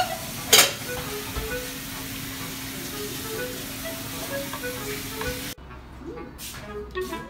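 Steady sizzling of a Japanese rolled omelette frying in a non-stick pan, over light background music with short melodic notes. A sharp clack comes about half a second in, and the sizzling cuts off suddenly at about five and a half seconds, leaving only the music.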